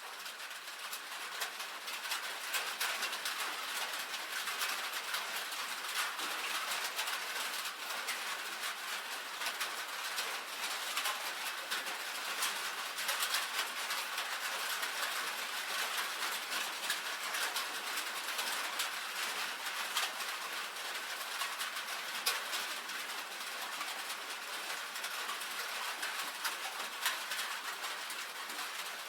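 Steady rain drumming on a tin roof: a dense patter of countless fine ticks on the metal, with no low rumble. It swells up over the first couple of seconds, then holds even.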